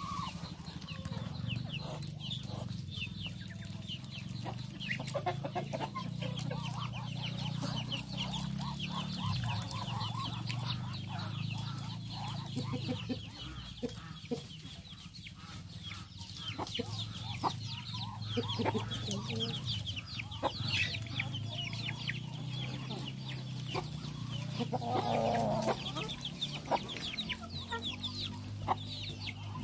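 A brood of young poultry peeping: many short, high, falling peeps repeated continuously, with a hen clucking among them.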